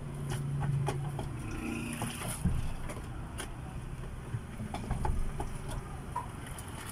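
A vehicle engine running outside, heard as a steady low hum that is strongest in the first second or so. Scattered knocks and taps of the mop against the van's floor and the bucket come throughout, with the loudest knock about two and a half seconds in.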